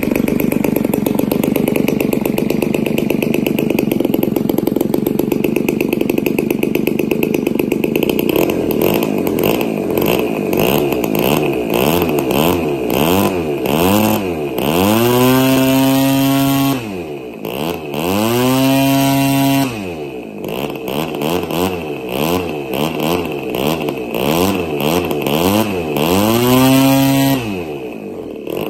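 RCGF 20cc single-cylinder two-stroke gasoline engine spinning a 17x6 APC propeller on a test stand, running steadily at first. From about nine seconds in it is throttled up and down repeatedly, rising to full throttle three times, holding briefly and dropping back. This is a new engine on its first run, being run in.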